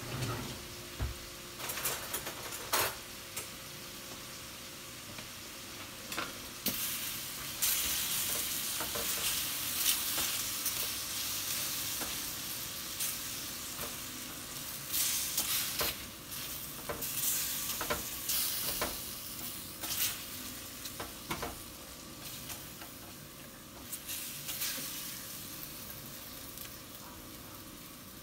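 Raw shrimp sizzling in olive oil in a stainless steel skillet while being stirred with a spatula, which scrapes and taps against the pan again and again. The sizzle swells louder for a few seconds about a third of the way in.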